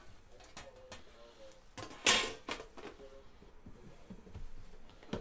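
Handling a metal trading-card tin and the card box inside it: light knocks and clicks, with a short scraping slide about two seconds in that is the loudest sound.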